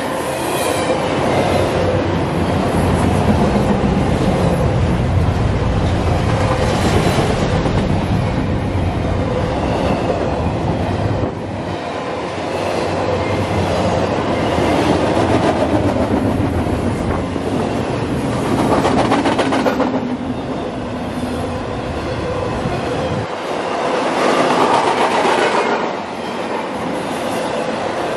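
Double-stack intermodal freight train's well cars rolling past at speed: steady noise of steel wheels running on the rails.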